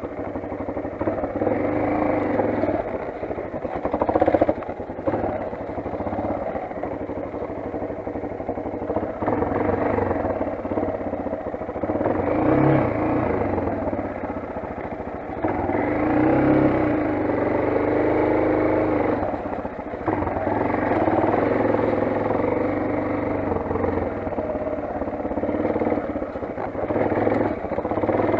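Motoland XR 250 enduro motorcycle's single-cylinder four-stroke engine running under way, its revs rising and falling with the throttle.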